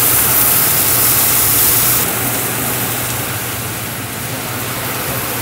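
Butterflied striped bass sizzling skin-down on a very hot steel plancha over a wood and charcoal fire: a loud, steady hiss that eases a little about two seconds in.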